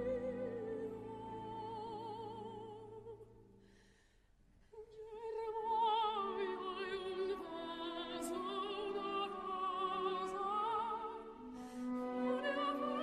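Recorded operatic soprano singing an Italian aria with orchestra, her voice wavering in wide vibrato over held string chords. The music stops for a moment about four seconds in, then voice and orchestra resume.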